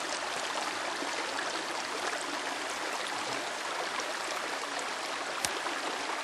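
Steady rush of a shallow flowing creek, with one brief click near the end.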